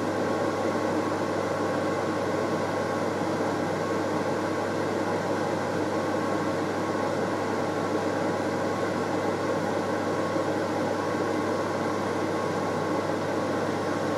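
Kitchen cooker-hood extractor fan running, a steady rushing noise with a low hum.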